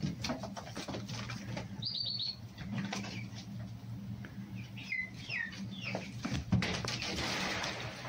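Small birds chirping in short calls, a quick high trill about two seconds in and falling chirps around five seconds, over a steady low hum. About six and a half seconds in a thud is followed by a second or so of rustling.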